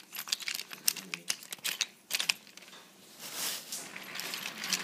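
Wooden toy train cars clattering and clicking as they are pushed by hand along wooden track and knock together, in quick irregular clicks and rattles, with a brief hiss about three and a half seconds in.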